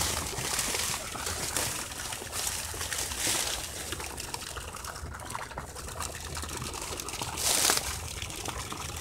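Dry cattail reeds rustling and crackling in several short bursts, the loudest near the end, as someone shifts their weight on a flattened mat of them at the water's edge. A low steady rumble runs underneath.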